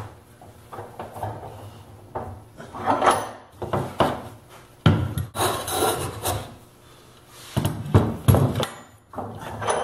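A wooden board and a metal hand plane being handled on a wooden workbench: irregular scrapes and knocks of wood on wood, with heavier thumps about five and eight seconds in.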